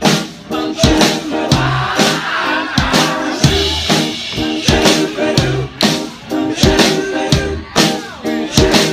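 Live band playing loud music, with a steady drum-kit beat and a bass line under it.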